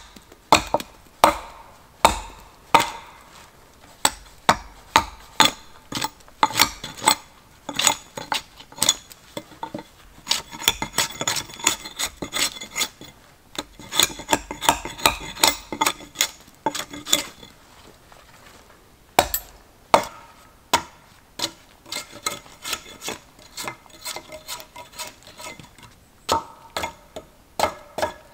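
Axe chopping into a wooden pole: a run of sharp knocks about one to two a second, a quicker flurry of lighter strokes in the middle, then spaced knocks again.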